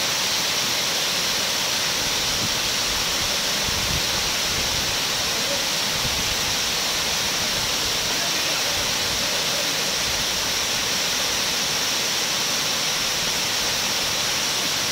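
Water pouring over a dam's overflow crest and cascading down its sloping masonry face: a steady, even rush.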